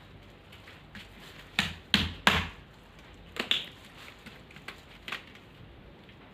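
Homemade borax slime being kneaded and pressed by hand, giving a few sharp pops and clicks. The loudest come in a quick cluster about two seconds in, with a couple more near the middle and one near the end.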